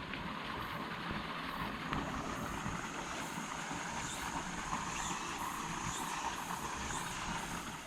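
Steady outdoor background noise with no distinct events, starting to fade out near the end.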